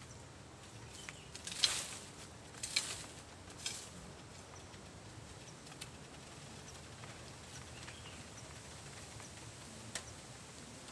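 Dry bamboo leaf litter rustling and crackling in three short bursts in the first few seconds as it is disturbed by hand or blade, then quiet with a single sharp click near the end.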